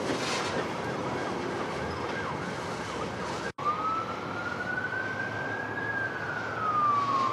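Covered hopper cars of a freight train rolling past with rumble and short wheel squeals; after a brief dropout, a single tone rises slowly for about two seconds and then falls, the wail of a distant emergency-vehicle siren.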